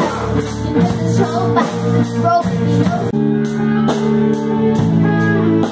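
Amateur rock band playing: drum kit and electric guitar, with a voice singing. About three seconds in it cuts abruptly to an electronic keyboard with an organ sound holding steady chords over electric guitar.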